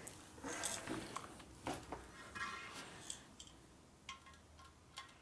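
Faint, scattered clinks and clicks of small metal parts and tools being handled, about a dozen light knocks, some ringing briefly.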